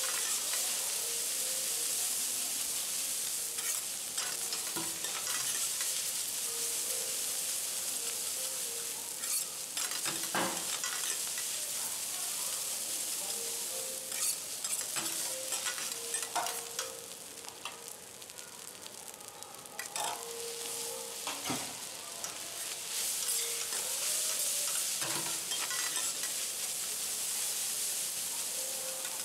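Garlic fried rice sizzling on a steel teppanyaki griddle while two metal spatulas scrape and clack against the plate, spreading and chopping the rice. Steady high hiss with frequent sharp scraping clicks, a little quieter for a few seconds past the middle.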